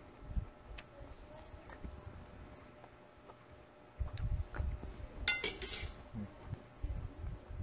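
Tableware clinking while eating: a few light clicks and soft knocks, and one bright ringing clink a little past the middle.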